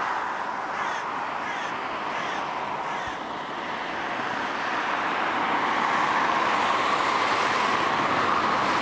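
Steady outdoor traffic noise that grows a little louder after the halfway point, with a crow cawing about four times in the first three seconds.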